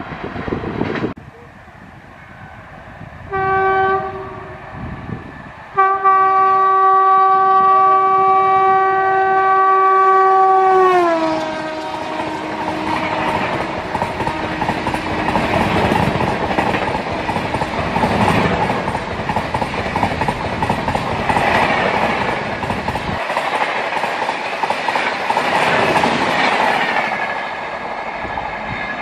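Rajdhani Express passing at about 130 km/h: the locomotive's horn gives a short blast, then a long one whose pitch drops suddenly as it goes by, followed by the rushing clatter of the coaches racing past. Near the end a fainter horn starts up.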